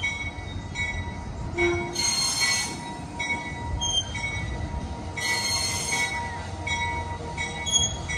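Railroad crossing signal bell dinging over and over, activated for an approaching train, over the train's low rumble. Twice the train's wheels let out a brief high squeal.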